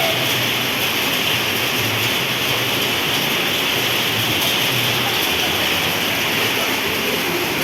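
Heavy storm rain pouring down in a steady hiss.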